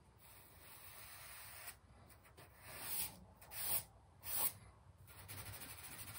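Compressed charcoal stick scraping across newsprint in shading strokes, darkening a core shadow: a faint steady scratchy rub at first, then three short, louder strokes between about three and four and a half seconds in.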